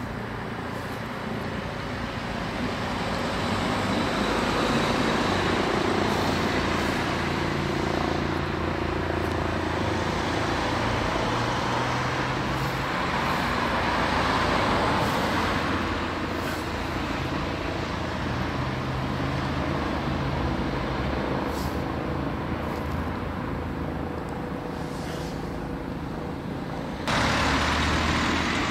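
Steady road traffic: a continuous rush of passing vehicles with a low engine hum that swells and fades. Near the end the noise jumps abruptly to a louder, brighter rush.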